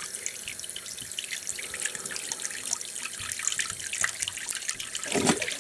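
Bathroom faucet running into a sink basin, a steady splashing hiss of water, filling the sink to test whether the plunged drain now flows freely.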